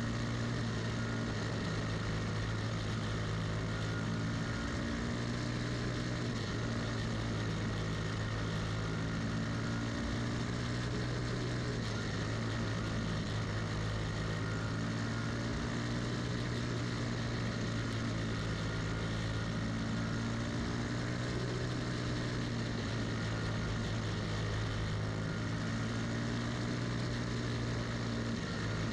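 Briggs & Stratton Animal single-cylinder four-stroke engine of a cage kart running hard on track, heard onboard at close range. Its steady note shifts slightly up and down in pitch every few seconds.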